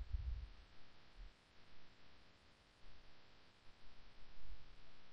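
Faint hiss and hum of a quiet recording microphone, with a few soft low bumps near the start and again near the end.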